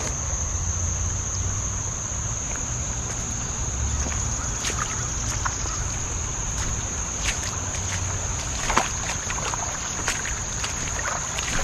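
Steady high-pitched drone of crickets or similar insects, over a low rumble, with scattered clicks and knocks.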